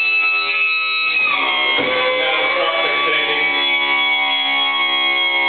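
The electric hydraulic pump of a retractable main landing gear runs with a steady whine of several tones as the gear extends. About a second in there is a brief rush of noise and the pitch drops slightly.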